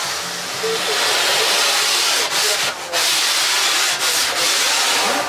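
Sanding of a foam surfboard blank: a loud, steady scratchy hiss with a few brief breaks around the middle and about four seconds in.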